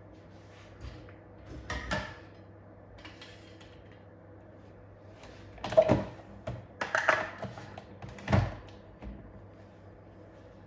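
Metal coffee capsules clicking and knocking as they are dropped one after another into a capsule dispenser tube. There are a couple of knocks about two seconds in, then a louder run of clinks and knocks from about six to nine seconds in.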